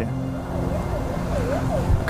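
Steady road-traffic rumble, with a faint siren from about half a second in that sweeps quickly up and down in a fast yelp, roughly three sweeps a second.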